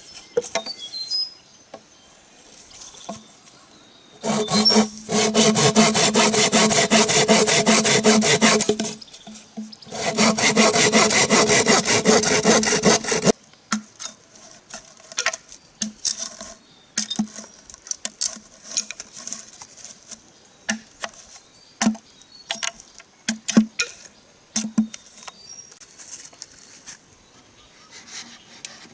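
Hand pruning saw cutting through a green bamboo pole in two spells of rapid, even strokes. After that, scattered light knocks and taps as a large knife works a short bamboo section.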